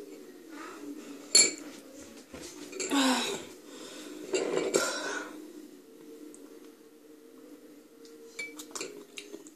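Metal spoon clinking against a small porcelain bowl: one sharp clink about a second and a half in and a few lighter taps near the end, with two longer noisy sounds around three and five seconds in.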